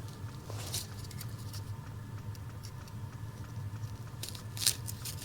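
Light handling noises, rustling and small scattered clicks with one sharper knock near the end, over a steady low hum.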